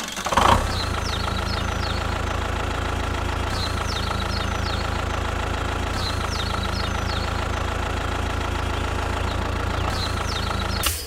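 Engine idling steadily with a knocking rumble, after a short louder burst about half a second in. A few short chirps repeat about every two and a half seconds over it.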